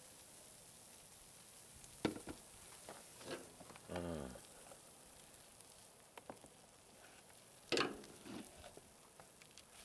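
Clicks and knocks of pliers and an aluminium heater core bumping against a plastic basin, the loudest near the end, over a faint fizzing from the Krot drain cleaner foaming as it eats into the aluminium. A short squeak falling in pitch about four seconds in.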